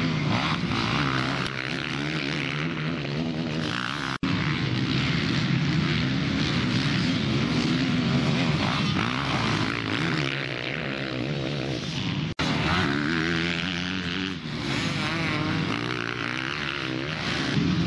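Motocross bike engines revving hard and easing off as they race past, the pitch rising and falling with the throttle. The sound cuts out briefly twice, about four and about twelve seconds in.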